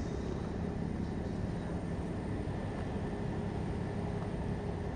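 A steady low engine rumble from a running machine, with no rises or breaks.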